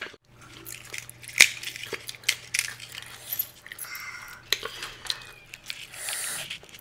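Pani puri being handled and eaten: crisp puri shells cracking and crackling under the fingers, with sharp clicks scattered through, the loudest about a second and a half in, and the drip and splash of the spiced water as a puri is dipped and filled.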